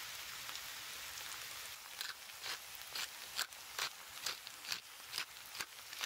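Pork, vegetables and mushrooms frying in a skillet: a steady sizzle for about the first two seconds, then scattered pops and crackles, roughly two a second.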